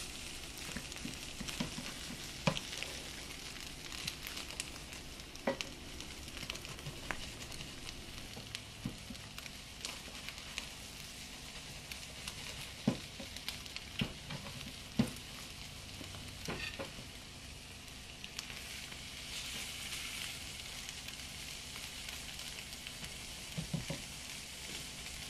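Salmon and egg omelette sizzling gently in a nonstick frying pan, with a scattering of light clicks and scrapes as a plastic spatula and fork work the egg.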